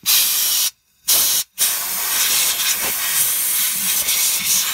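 Compressed shop air blowing from a blow gun to clear dirt and debris off the top of the fuel tank around the fuel tank pressure sensor: a loud hiss that breaks off twice briefly in its first second and a half, then runs on steadily.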